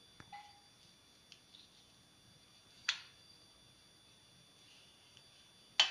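Two sharp taps on a large stainless-steel plate, about three seconds apart, with a few fainter ticks between, as steamed pumpkin is peeled with a knife over it. The second tap is the loudest and rings briefly.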